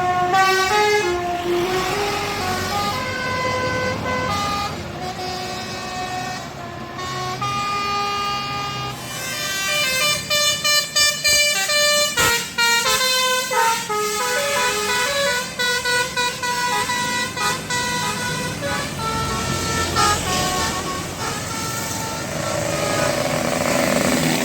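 Indonesian bus 'telolet' horn, a multi-tone musical air horn playing a tune: held notes stepping up and down in pitch, with a fast run of short, chopped notes in the middle.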